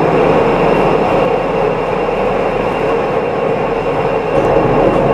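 Pilatus Railway cogwheel railcar running steadily through a rock tunnel. The sound is a loud, even running noise of the rack drive and wheels, closed in by the tunnel walls.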